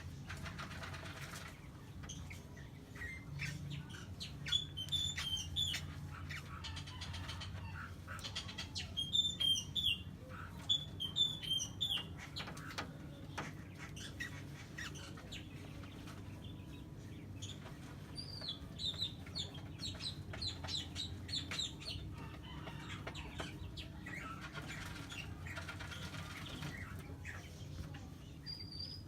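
A bird chirping in several short runs of quick, high notes, with scattered short clicks and rustles between them and a steady low hum underneath.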